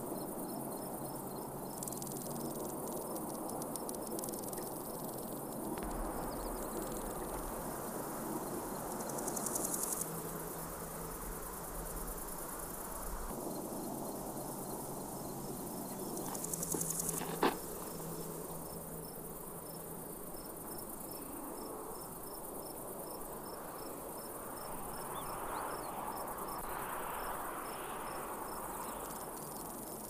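Insects chirping in a steady high trill with a regular pulsing beat. Two short, louder buzzes come about ten and seventeen seconds in, with a single sharp click just after the second. A soft steady hiss runs beneath.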